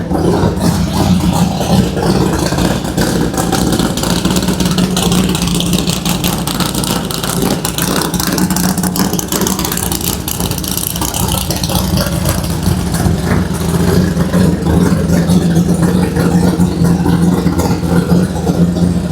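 Drag car's engine running loudly at a steady idle, a constant low note with a rapid crackle from the exhaust.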